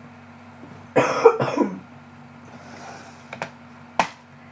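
A person with a cold coughing, a short fit of two or three coughs about a second in. Two sharp clicks follow near the end.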